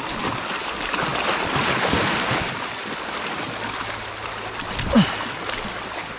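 Sea waves washing against the shore, swelling over the first two seconds or so and then easing off, with one short thump about five seconds in.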